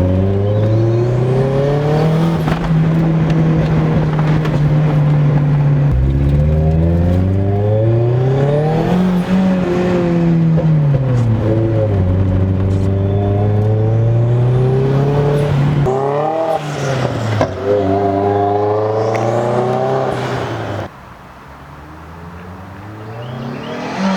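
Turbocharged car engine pulling under load and changing gear, its pitch climbing and falling several times before easing off to a quieter, lower run near the end. The blow-off valve is on test after one of its two springs was removed to stop compressor flutter.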